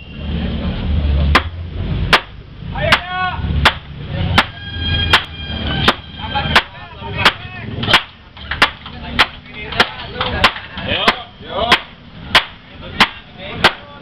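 A large chopping knife hacking into a wooden beam: sharp chops at an even pace, about one every 0.7 seconds, starting about a second and a half in.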